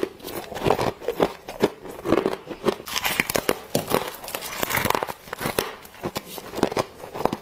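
Close-miked bites into soft humidifier frost from an ice bowl: a dense run of crisp crunches and crackles as the frost is bitten and crushed.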